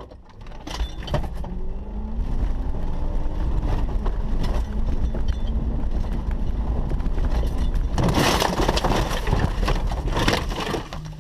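Jeep Grand Cherokee ZJ heard from inside its cab: the engine accelerating with a rising pitch, then running steadily at speed. About eight seconds in a loud crashing, crunching and rattling breaks out as the Jeep is jerked to a stop by the strap tied to a tree and tumbles, with loose contents flying around the cab.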